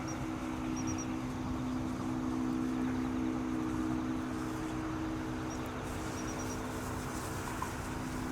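A steady low mechanical hum over a faint background hiss, with faint short high chirps in small groups of three or four, near the start and again about six seconds in.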